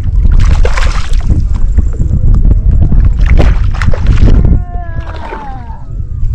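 Water splashing and sloshing around a kayak, with wind rumbling on the microphone. Near the end a child's voice slides down in pitch.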